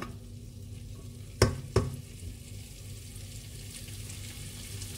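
Fried lung in chilli balado paste sizzling softly in a nonstick pot, with a steady low hum underneath. Two sharp knocks come about a second and a half in.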